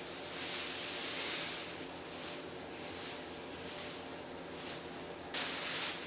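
Thin plastic masking film rustling and crinkling as it is unfolded and smoothed over a wooden boat deck, swelling and fading with the hand strokes. A sudden louder crackle of plastic comes near the end.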